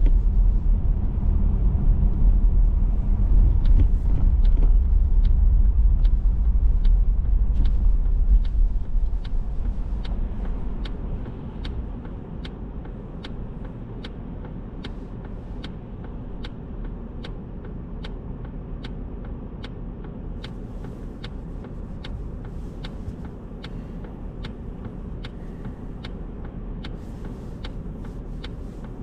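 Car driving with a loud low road-and-engine rumble that dies away about ten seconds in as the car slows, while the turn-signal indicator ticks steadily, about one and a half ticks a second.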